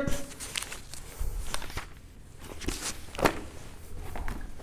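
A few soft, scattered taps and knocks, the loudest about three seconds in, over a faint low hum.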